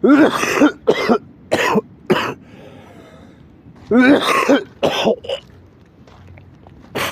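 A person coughing in two fits: four coughs at the start, then three more about four seconds in, and one last cough near the end.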